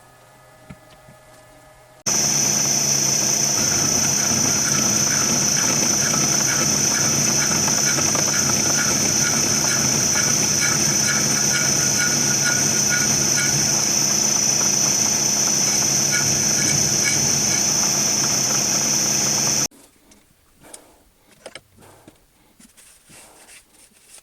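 Angle grinder with a flat disc running on metal, a loud steady high whine that starts and stops abruptly, taking a sharp corner off a workpiece.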